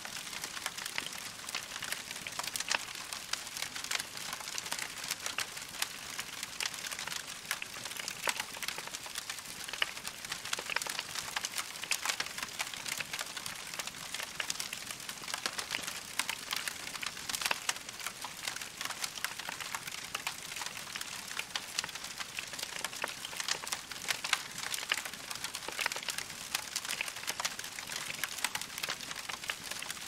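Wood fire of burning logs crackling steadily: a dense run of small sharp pops and snaps over a steady hiss.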